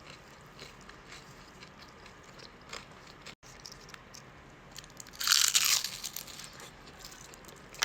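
Close-miked biting and chewing of fried crab rangoon, soft crackly chewing at first, then a loud crisp crunch a little after five seconds in as the fried wonton wrapper breaks.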